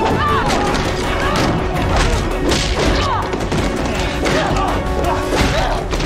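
Action-scene music under a series of punch and body-blow impacts and crashes from a hand-to-hand fight, with short grunts of effort between them.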